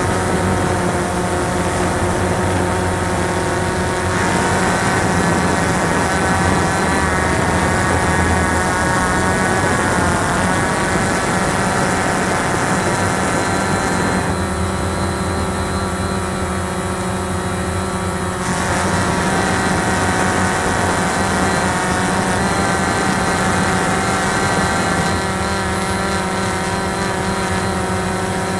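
Cheerson CX-20 quadcopter's electric motors and propellers whining steadily, heard close up from the camera on board. The pitch of the whine shifts a few times as the motor speeds change, most clearly for a few seconds about halfway through.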